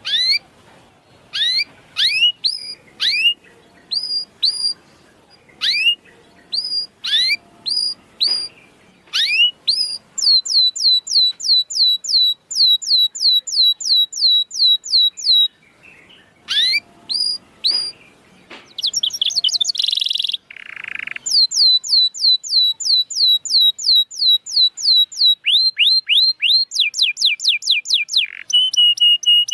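Canary singing: separate sweeping chirps at first, then long runs of rapid repeated falling notes, about four a second, broken by a short harsh rasping note about twenty seconds in.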